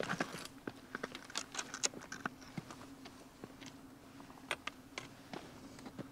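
Footsteps on a rocky mountain trail: irregular clicks and knocks of boots on stones, thickest in the first couple of seconds, over a faint steady hum.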